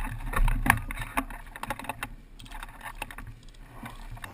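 Irregular clicks and knocks over a steady low rumble, busiest in the first second and thinning out toward the end.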